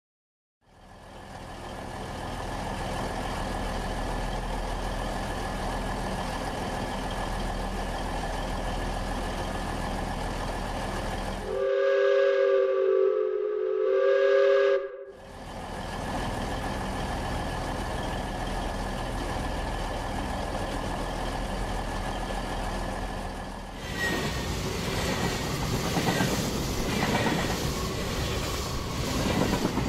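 Steady train rumble, broken about twelve seconds in by a loud two-tone train horn held for about three seconds. From about 24 seconds the rattling clatter of a small motorized N-scale toy train running on its track takes over.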